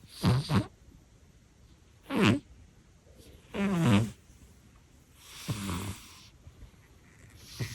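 A cat snoring in its sleep: five short snores, about one every one and a half to two seconds, the one about halfway through softer and breathier.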